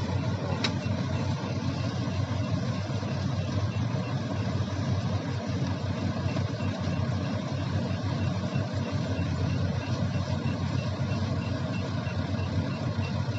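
Kubota combine harvester engine running steadily at working speed, with one brief tick about half a second in.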